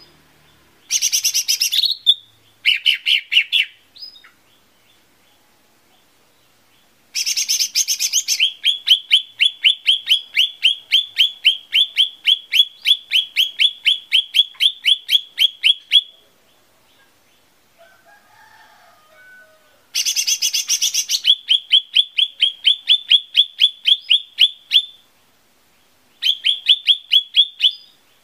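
Lesser green leafbird (cucak ijo mini) singing in phrases. Each phrase opens with a short harsh buzzy burst, followed by a fast run of identical clear chips at about four a second. The longest run lasts about eight seconds.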